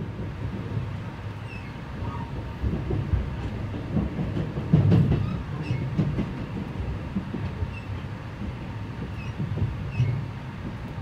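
E653 series express train heard from inside the passenger car while running: a steady low rumble of wheels on rail with irregular thumps, the heaviest about five seconds in.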